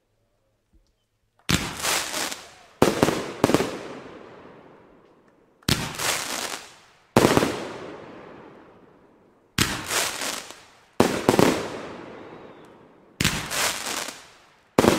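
Aerial fireworks bursting overhead: after a brief quiet, about nine sharp bangs come at irregular spacing of one to two and a half seconds. Each bang is followed by a long echoing decay.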